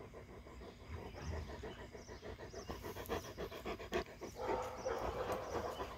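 A Great Pyrenees dog panting rapidly, right up against the microphone. The panting grows louder about halfway through.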